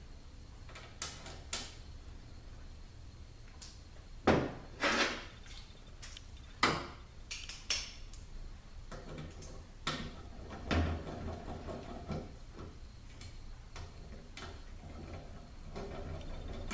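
Scattered metallic clinks and knocks of T45 Torx bolts and hand tools being handled while the bolts are fitted into a Mercedes 722.9 transmission pump assembly, with a few louder knocks near the middle.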